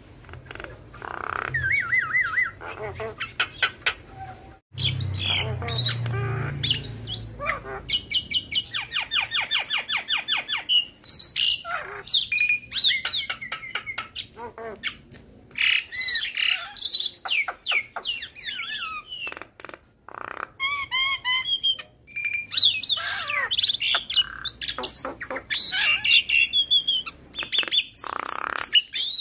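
Javan myna singing in full voice: a loud, varied stream of chattering, rapid rattling trills and rising and falling whistles, in phrases broken by short pauses.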